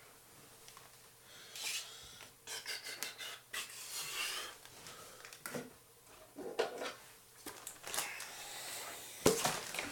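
Handling noises from rummaging and a mailed package being handled: irregular rustling and scraping with short clicks, and a sharp knock about nine seconds in.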